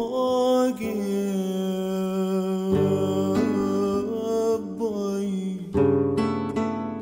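Background music: acoustic guitar under a melody held on long, wavering notes, probably sung. Near the end the held melody drops away and single plucked guitar notes ring out and fade.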